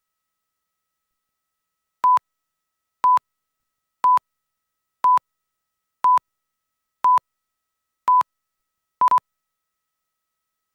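Countdown beeps of a broadcast slate: eight short, steady, high beeps at one pitch, one a second, starting about two seconds in, ticking off the countdown before the commercial starts.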